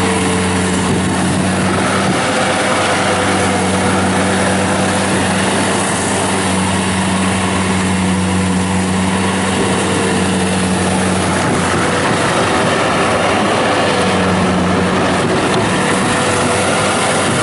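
Kubota diesel engine of a Bobcat T180 rubber-track skid steer loader running steadily and loud, over a dense mechanical clatter. A low hum in the engine note drops away about eleven seconds in and returns a few seconds later.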